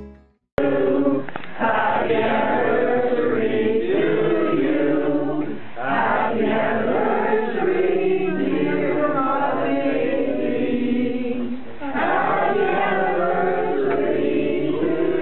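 A group of people singing together in unison.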